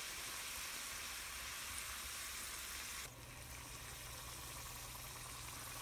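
Puris deep-frying in hot oil, a faint steady sizzle. About three seconds in, the sizzle drops a little and a low hum comes in.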